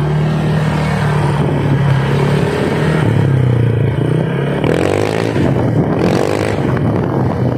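Honda Click 150 scooter's single-cylinder engine revved with the throttle pulled wide open, breathing through an MT8 aftermarket exhaust pipe. The exhaust note is loud, and its pitch rises and falls with the throttle.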